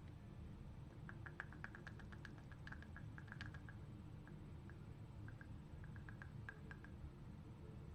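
Faint quick clicks and crinkles of small plastic packaging being handled, in two clusters: from about one to four seconds in, and again around six to seven seconds.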